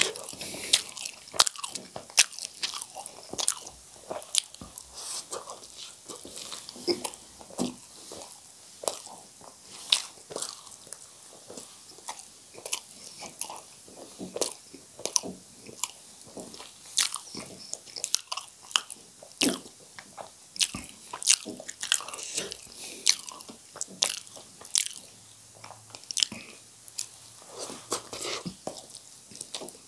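Close-miked chewing and eating sounds of a person eating spicy instant noodles and spiced boiled potatoes: irregular wet smacks and clicks of the mouth, several a second.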